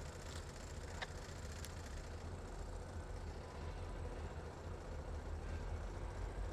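Diesel locomotive engine idling with a steady low rumble. A couple of faint clicks come about a second in.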